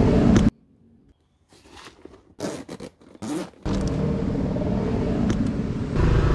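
Rustling and scraping of items being handled in a scooter's underseat storage compartment during a quiet stretch, then a steady low rumble from the Honda Forza 250's engine that grows louder near the end.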